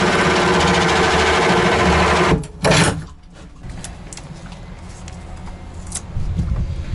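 Cordless drill spinning a hole saw through fibreglass, a steady whir that stops suddenly about two seconds in, with one brief burst just after. Then only light clicks and handling.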